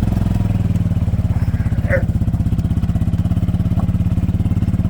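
A small engine running steadily at one even speed, its rapid firing pulse unchanging. A brief short call cuts in about two seconds in.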